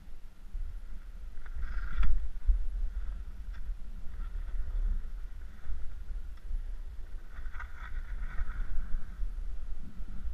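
Skis hissing and scraping through snow during an off-piste ridge descent, with louder swishes about two seconds in and again around eight seconds. Wind rumbles on the camera microphone throughout.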